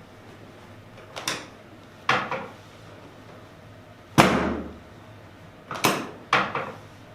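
Chiropractic drop table's drop section slamming down under the chiropractor's thrusts during a sacrum adjustment: five sharp knocks at uneven intervals, the loudest about four seconds in.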